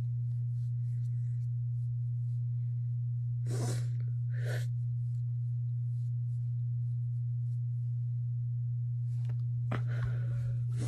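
Steady low electrical hum, with a person sniffing twice through a runny nose about three and a half seconds in, and a few faint clicks near the end.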